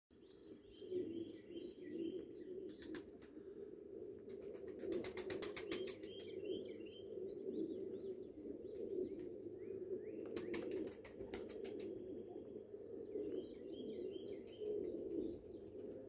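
A woodpecker drumming on wood in rapid rolls of about a second each, four rolls in all, with small birds chirping between them.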